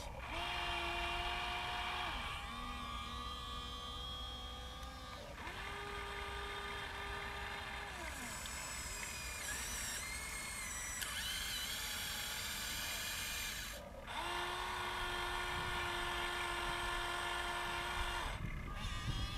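Small electric motors of a radio-controlled Huina excavator whining as its arm, bucket and turntable move. There are several runs of a few seconds each, each sliding up in pitch as it starts and down as it stops, with a quieter stretch in the middle.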